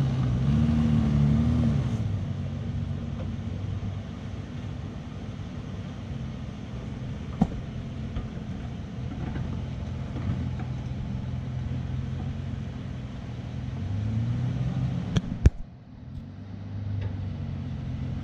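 Four-wheel drive's engine working under load while crawling over a rocky step, revving up near the start and again near the end. A sharp knock comes about seven seconds in, and two more just after the second rev, after which the engine briefly drops quieter.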